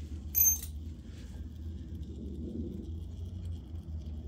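A small metal part clinks once with a short bright ring about half a second in, followed by quieter handling sounds over a steady low hum.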